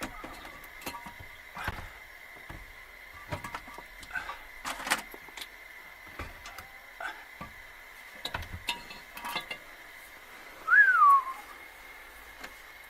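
Scattered light clicks and knocks, then, about eleven seconds in, a single short whistle falling in pitch, the loudest sound.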